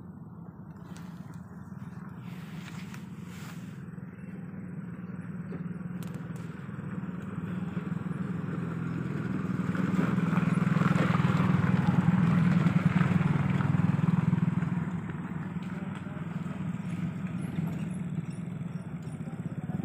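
Motorcycle engine running at low revs with a steady low hum, growing louder about halfway through and easing off again after a few seconds.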